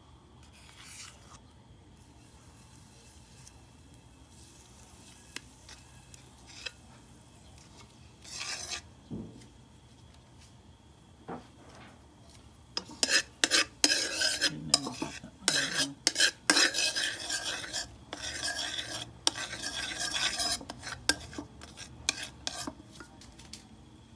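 A metal spoon stirring margarine around a metal wok. It starts with a few light taps, then from about halfway scrapes and clinks rapidly against the pan, with a light sizzle of the margarine melting.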